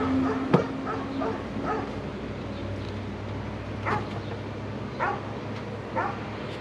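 A dog giving short barks, about one a second through the second half, with a sharp knock about half a second in, over a steady low hum.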